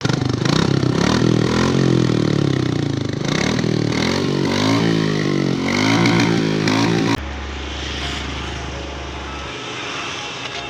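Royal Enfield Bullet motorcycle's single-cylinder engine being revved up and down over and over. About seven seconds in the sound drops suddenly to quieter, steady running.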